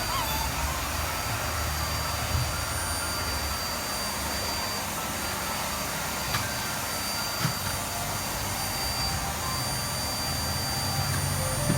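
Vacuum cleaner running steadily with a thin high motor whine, with a few light knocks.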